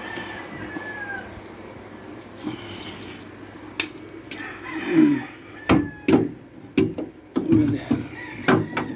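Sharp knocks and clunks of a steel leaf spring being handled and set against a metal pipe, starting about four seconds in, with a few short high-pitched cries near the start and again near the end.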